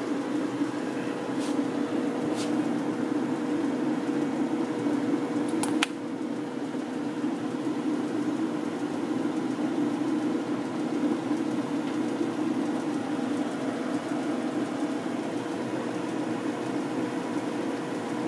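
American Pacemaker engine lathe running at low speed, its belt-driven spindle and gearing giving a steady, even hum with the feed set up to drive the carriage along the lead screw. A single sharp click about six seconds in, after which the running sound drops slightly. The machine runs quietly, its ways and gearbox freshly oiled.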